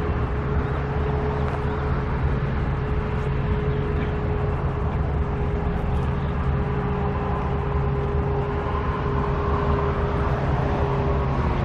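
Engine running steadily: a low, even drone with a constant whine above it.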